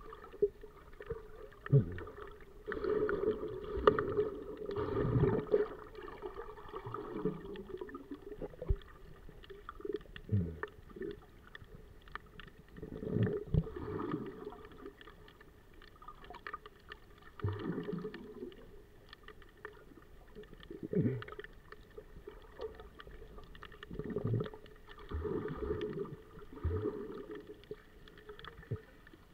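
Muffled underwater water sound picked up through a camera's waterproof housing: the sea sloshes and surges in swells every few seconds, with scattered small clicks and knocks.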